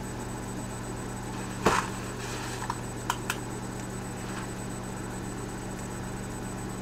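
Microwave oven running with a steady hum. About two seconds in there is a brief crackle as the spaghetti box is handled and opened, followed by a few light clicks.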